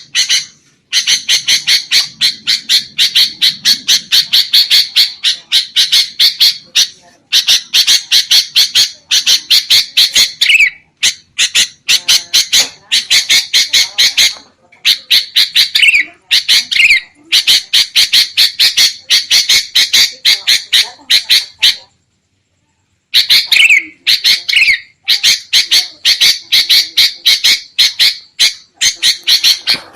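Sooty-headed bulbuls (kutilang) giving a noisy, agitated chattering call: long runs of sharp notes repeated several times a second, broken by short pauses and one silent gap of about a second past the middle. It is a lure call used to draw bulbuls in for trapping.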